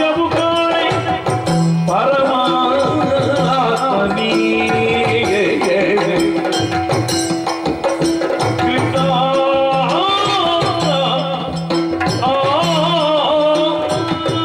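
Yakshagana music: the bhagavata singing a wavering melodic verse, accompanied by chende and maddale drums with sharp metallic timekeeping strokes. The sung line is strongest about two seconds in and again in the last few seconds.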